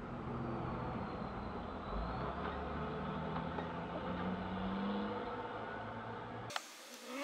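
Road traffic at an intersection: vehicle engines and tyres as cars and a box truck pass, with one engine rising in pitch as it accelerates about four to five seconds in. The sound cuts off abruptly with a click near the end.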